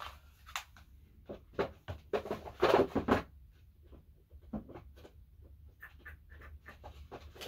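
Plastic CD jewel cases clacking and rustling as they are handled, with a cluster of louder clatters about two to three seconds in.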